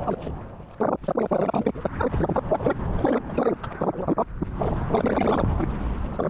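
Wind rumbling on the microphone, with a run of short rustling and knocking handling noises as a braided rope is pulled and uncoiled.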